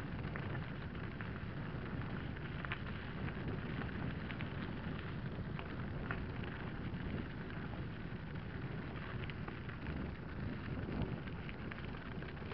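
Wind buffeting the microphone of a mountain bike's onboard camera over the steady rumble of tyres rolling down a loose gravel track, with scattered ticks and rattles from stones and the bike.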